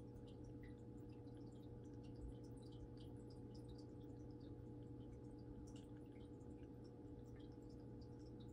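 Small aquarium's filter running: a faint steady hum with tiny scattered drips and trickles of water.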